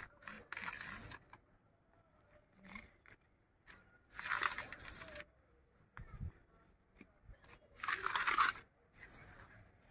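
A small hand trowel scraping and stirring soil and compost in a shallow metal tray, mixing more potting mix, in three longer scraping strokes a few seconds apart with shorter scrapes between.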